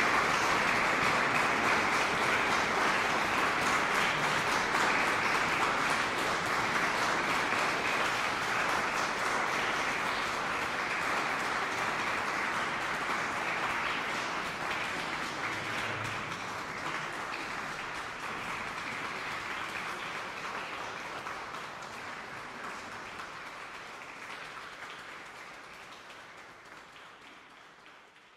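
Concert audience applauding, a dense steady clapping that slowly dies down and fades away near the end.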